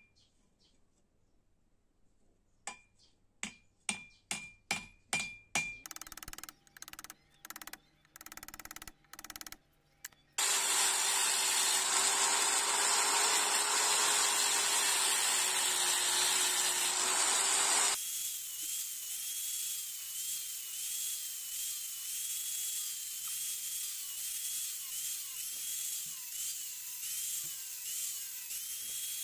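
A hammer striking steel on an anvil, a quick run of about eight ringing blows, followed by an angle grinder fitted with a sanding disc running loudly against the sickle's handle. The grinder's sound changes and becomes quieter about two-thirds of the way through.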